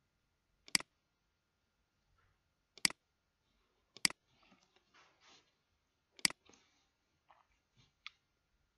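Computer mouse button clicking: four sharp clicks one to two seconds apart, with softer shuffling and a few lighter clicks between and after them.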